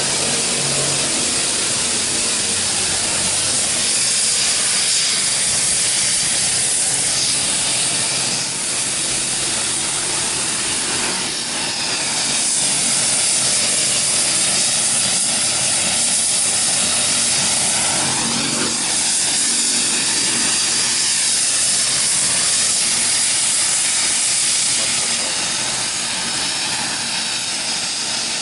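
Turbine helicopter running on the ground at a heliport pad: a steady hiss of engine noise with a faint high whine.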